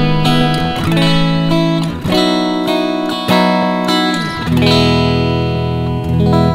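PRS SE electric guitar with a roasted maple neck and humbuckers, played clean through a Roland Cube 30 amp: ringing chords that change about two seconds in and again past the four-second mark.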